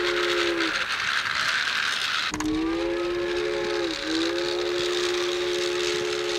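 A chime-type train whistle sounding a chord of three held notes: one blast ends with a drop in pitch under a second in, and after a gap a long blast starts, sags once in the middle and carries on. A steady mechanical whir runs underneath.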